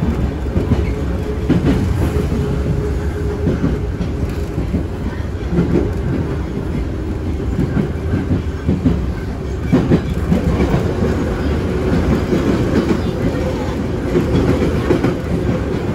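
Moscow Metro train running at speed, heard from inside the car: wheels rumbling and clattering on the rails under a steady motor hum. An oncoming train passes close by near the end.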